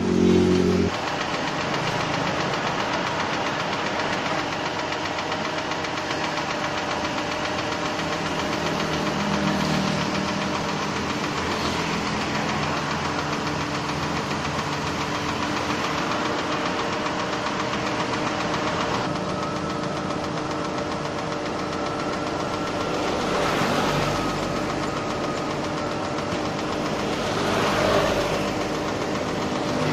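The engine of a truck-mounted boom crane running steadily while the boom raises the work basket, with a few brief swells in engine speed.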